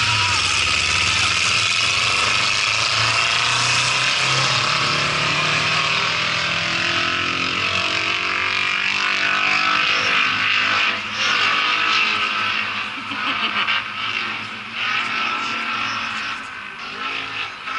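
Several racing cars' engines running together on the oval, many pitches rising and falling at once. Loud and steady at first, then uneven and fading about halfway through, with short surges of revving near the end.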